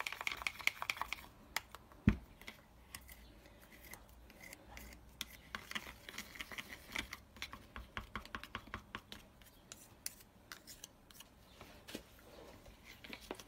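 Metal spoon stirring melted white chocolate in a plastic tub, clicking and scraping against the sides as green colouring is mixed in, with one louder knock about two seconds in.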